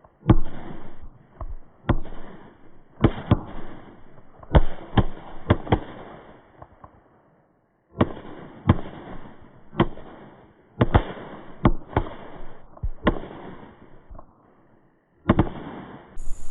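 A string of Phantom firecrackers going off: loud sharp bangs at an irregular pace, one to a few a second. They break off twice for about a second.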